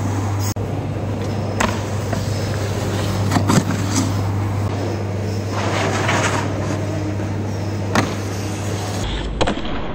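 Snowboard sliding and scraping over indoor artificial snow and along a box, with a few short knocks, over a steady low hum.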